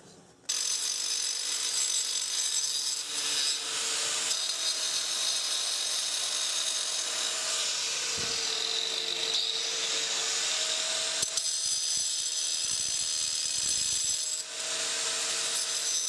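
4-inch angle grinder with a diamond blade cutting into granite at a corner of a countertop sink cutout. It gives a steady high-pitched whine and grinding noise that starts about half a second in, with its pitch sagging and recovering as the blade loads in the stone, and a brief dip near the end.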